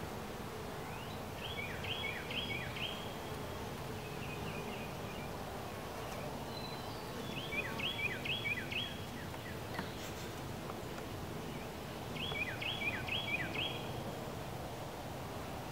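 Honeybees humming around an open hive, with a bird singing a short phrase of three or four quick high notes, repeated about every five seconds.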